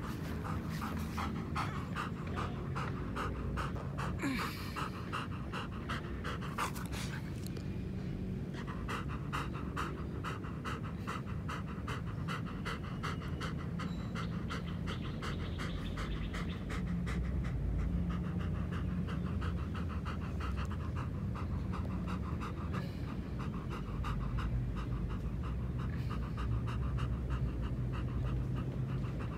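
German Shepherd dog panting rapidly and rhythmically with its mouth open and tongue out, cooling down after running.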